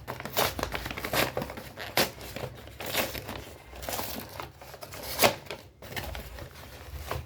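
A delivery package being torn open by hand: irregular crinkling and tearing of the packaging, with one sharp rip about five seconds in.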